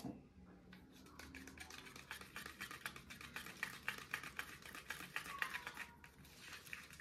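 Small metal spatula stirring and scraping thick paint in a plastic cup: a faint, fast run of scraping ticks that starts about a second in and eases briefly near the end.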